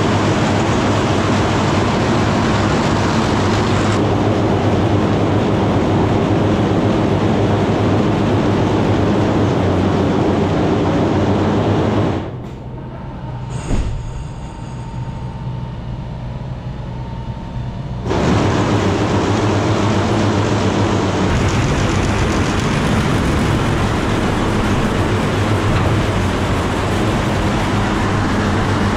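Loud, steady machinery running with a low hum. It drops abruptly to a quieter background for about six seconds midway, with a single click, then resumes.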